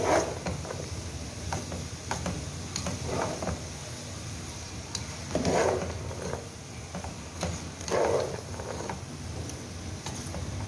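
A spatula stirring and turning shredded cabbage, carrots and capsicum in a nonstick pan, scraping and rustling in separate strokes every two to three seconds.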